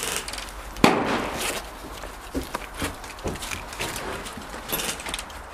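One sharp knock about a second in, then scattered lighter clicks and knocks during airsoft play inside a wooden log structure.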